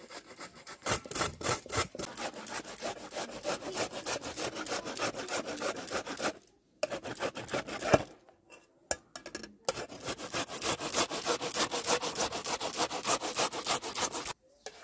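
Raw carrots being grated on a flat metal hand grater over a steel bowl: quick, repeated rasping strokes, breaking off twice briefly around the middle.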